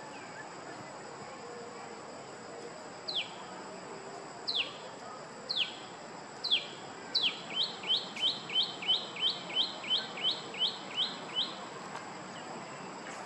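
A bird calling: a few separate down-slurred whistles, then a quick run of about a dozen short, even notes at roughly three a second, over a steady high insect drone.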